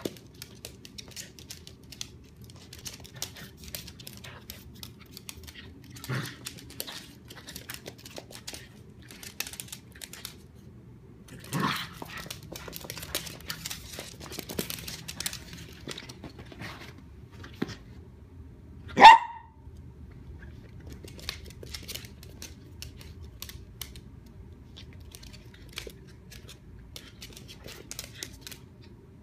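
A dog and a puppy play-fighting on a hardwood floor: light clicks and scuffles of paws and claws throughout, a few short vocal noises, and one sharp, high bark about two-thirds of the way through, the loudest sound.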